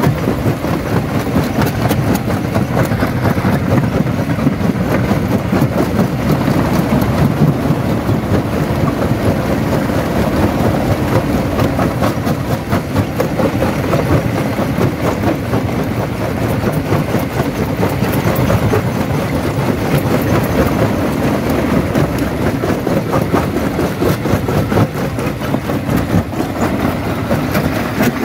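Jaw crusher crushing stone: a steady rumble with a dense, continuous clatter of rock cracking and rattling in the jaws.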